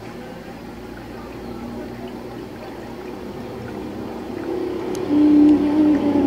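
Aquarium filter running, a steady trickle of water. About four seconds in a steady motor hum comes in and grows louder.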